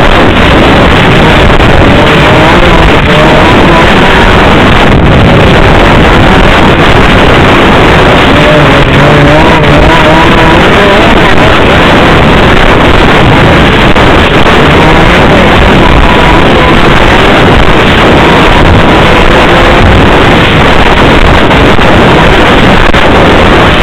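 Snowmobile engine running while riding, its pitch wavering up and down with the throttle, over a dense rushing noise. The recording is very loud and overdriven.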